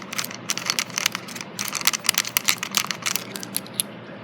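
Ulanzi Claw quick-release plate being unscrewed from the bottom of a camera with its small lever: a fast, irregular run of small clicks and rattles that stops shortly before the end.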